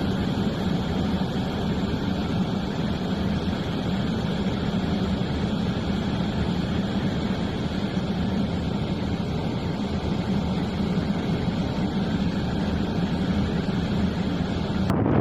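Steady vehicle noise: an engine running with a constant low hum under an even rush of noise, unchanging throughout.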